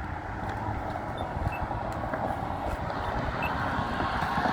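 Street traffic passing a crosswalk, a steady rush of tyre and engine noise that grows louder toward the end as a vehicle approaches.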